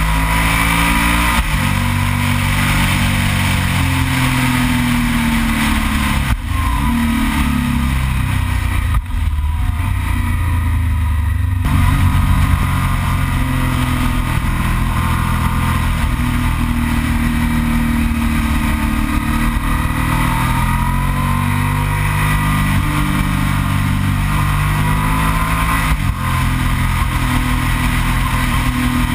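Yamaha TDM 900's parallel-twin engine running under load while riding, its pitch rising and falling with the throttle, with a few brief dips in between. Steady wind rush on the microphone underneath.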